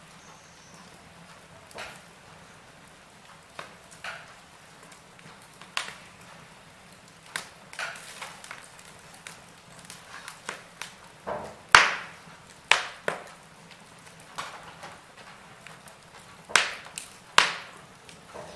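Wood fire burning in a fireplace, crackling: irregular sharp pops and snaps over a faint steady hiss. The pops come more often and louder in the second half.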